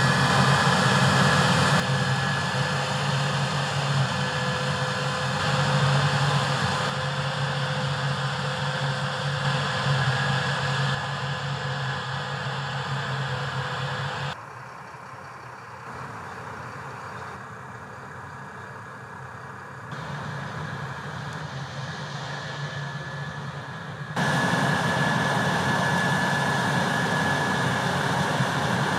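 Diesel engines of harvest machinery (a combine harvester and tractors) running steadily: a low drone with a high steady whine above it. The level drops sharply about 14 seconds in and jumps back up about 24 seconds in.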